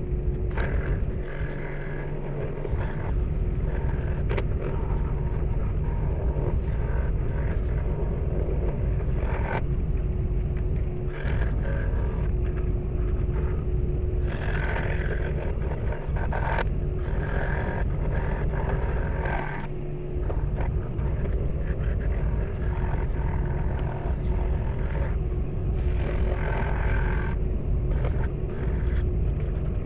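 Scroll saw running steadily, its blade cutting small pieces of cedar, the cutting noise rising and falling as the wood is turned into the blade, with a few sharp clicks.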